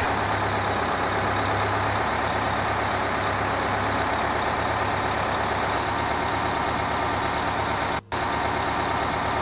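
Engine of a tracked self-propelled howitzer running steadily, a constant low hum under a broad noise, cutting out for a moment about eight seconds in.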